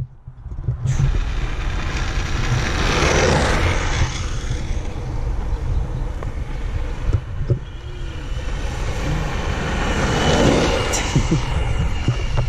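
Steady low rumble of wind and road noise from a camera moving low along an asphalt road, swelling about three seconds in and again near ten seconds.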